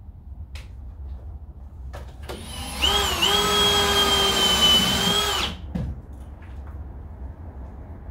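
Cordless drill running for about three seconds as a hole is drilled high on the brick exterior wall: its motor whine climbs as it spins up, holds steady, then cuts off. A few light knocks come before it.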